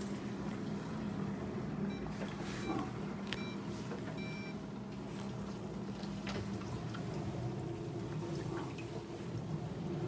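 Fisher & Paykel DD60DCX7 dishwasher drawer running its main wash: a steady pump hum with water washing inside. A few short electronic beeps come between about two and four and a half seconds in, and a few clicks follow as the drawer is pulled open.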